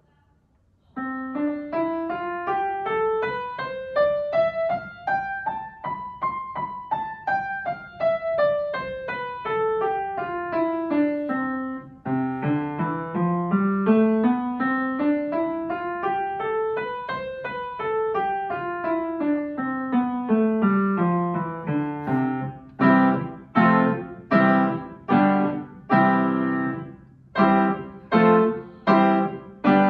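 Upright piano playing a C major scale up and down twice, the second time starting lower. The scale is followed by a run of separately struck chords, about one or two a second.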